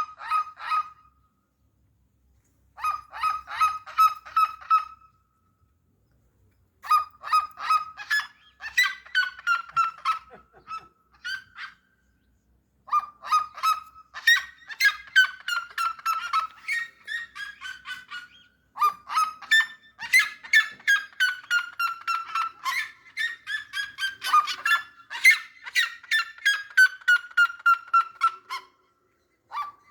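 Birds calling loudly in bouts of rapid, evenly repeated short honking notes, several a second. Some series fall in pitch, and from about halfway on two birds' series often overlap.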